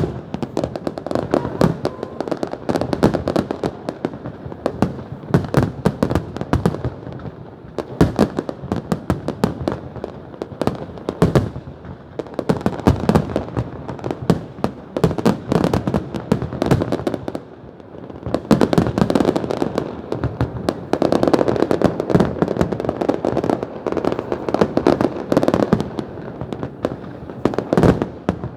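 New Year's fireworks going off without a break: a dense, continuous run of bangs and crackling shell bursts.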